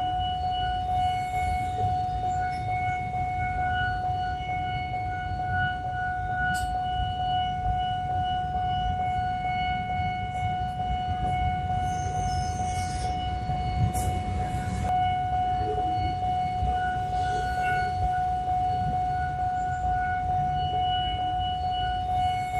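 Railway level-crossing warning siren sounding one steady, unwavering tone throughout, over a continuous low rumble.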